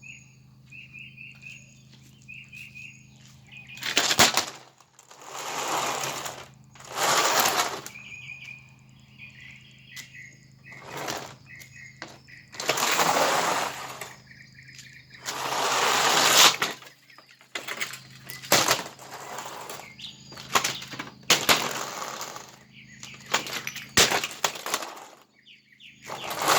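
Objects thrown at a burned-out Lasko box fan: a series of rushing, rustling noise bursts, some lasting over a second, with a few sharp knocks among them. Birds chirp faintly in the first few seconds.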